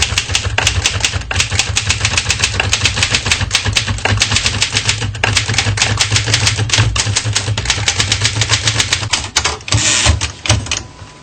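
Typewriter being typed on quickly: a rapid, uneven run of sharp key strikes, several a second, that thins out and quietens near the end.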